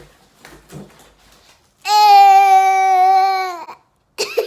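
A high voice holds one long, loud vowel for about two seconds, starting about two seconds in and dipping slightly in pitch as it ends. Before it there are only faint clicks.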